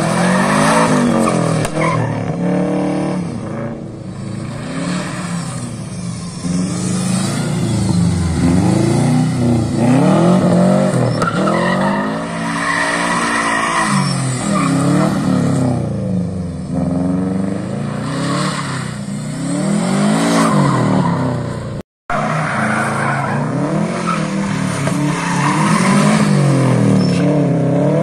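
Subaru Impreza rally car engine revving hard and falling back over and over as it is thrown through a tight slalom, with tyres squealing at times. A brief cut in the sound comes about two-thirds of the way through.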